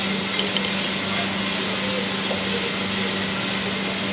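Steady whirring machine noise with a constant low hum, unchanging throughout.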